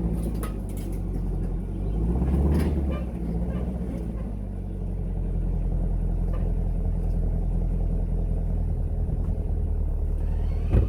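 Camaro SS's 6.2-litre V8 running on its stock exhaust: a steady low rumble that swells briefly about two seconds in, then settles.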